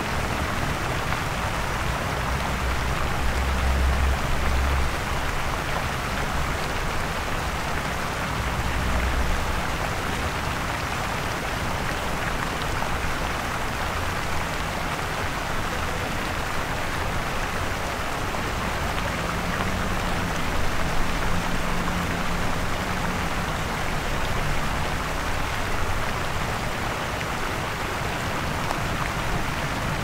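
Busy city street ambience: a steady, dense hiss, with low vehicle engine rumbles swelling about three to five seconds in and again near nine seconds, and a faint engine hum around twenty seconds in.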